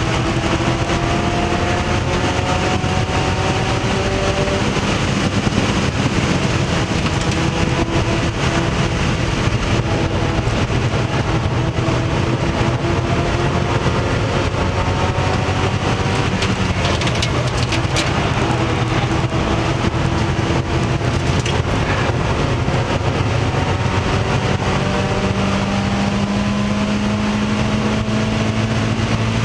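Mazda Miata race car's inline four-cylinder engine at racing speed, heard from inside the stripped cockpit: its pitch climbs slowly for several seconds and then drops at each gear change, again and again, over steady wind and road noise.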